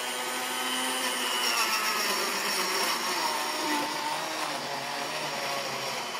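Countertop electric blender running steadily, mixing strawberries, bananas and yogurt into a smoothie, its motor pitch wavering slightly as it works through the fruit.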